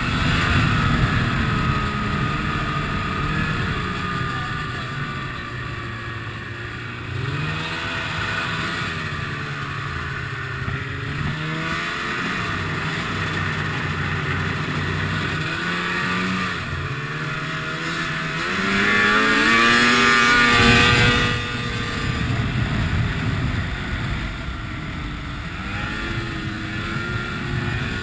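Ski-Doo MXZ snowmobile engine under way, its pitch rising and falling repeatedly as the throttle is worked, with a loud run up in revs about two-thirds of the way through.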